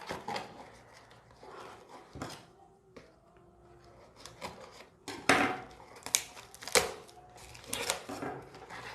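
Packaging of washing-machine cleaning tablets being handled and opened: irregular crinkling rustles and small clicks, louder from about five seconds in.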